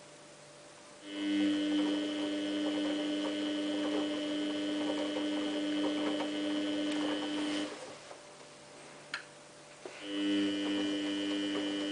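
Samsung WF8804RPA washing machine running with a steady machine hum that starts about a second in, stops near eight seconds and comes back near ten seconds, as the drum turns in spells during a pre-wetting cycle.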